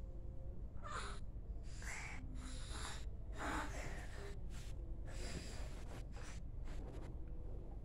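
A person's short breathy huffs and snuffles close to the microphone, about six of them a second or so apart, over a low steady hum.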